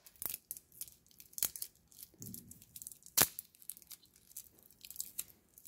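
Yellow tape and plastic wrap being peeled by hand off a LiPo battery pack: intermittent crackling and tearing, with one sharp click about three seconds in.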